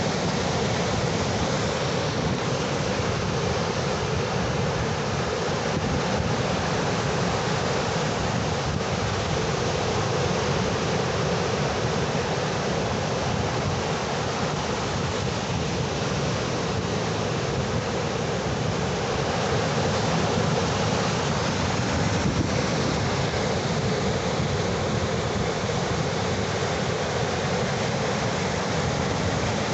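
Ocean surf: a continuous wash of waves, steady with a gentle swell about two-thirds of the way through.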